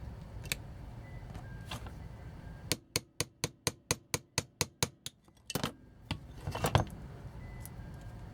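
Small hand tool working at a plastic toy's wheel mount: about a dozen quick, even clicks, about five a second, then a louder clatter of knocks as the toy and tool are handled.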